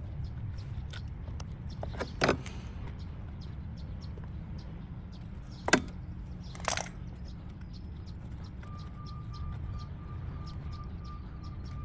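Hands working on a lawnmower's wiring: small ticks and three sharp clicks or snaps, about two, six and seven seconds in, the middle one the loudest. They sound over a steady low background rumble.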